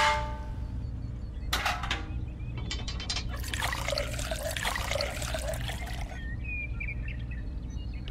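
A few light clicks of a small metal scoop against a tin can, then water poured from a small plastic cup into the can onto dry cement mix, a trickling pour of about two and a half seconds starting a little past the middle.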